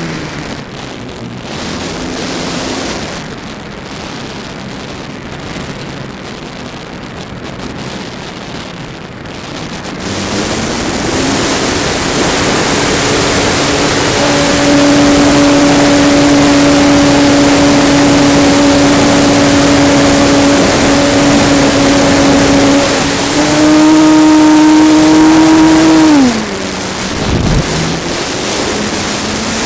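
Electric motor and propeller of a 64-inch Extreme Flight MXS aerobatic RC plane, heard from a camera on board with heavy wind noise on the microphone. The prop whine is low and mostly covered by wind for the first several seconds, rises at about ten seconds to a steady loud tone, climbs higher briefly past twenty seconds, drops away abruptly and begins rising again near the end as the throttle is worked.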